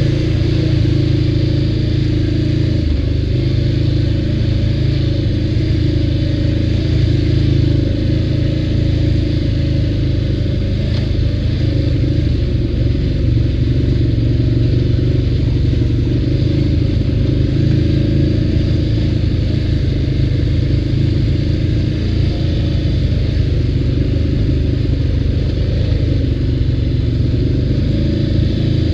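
ATV engine running at a fairly steady speed under way, its pitch holding roughly constant.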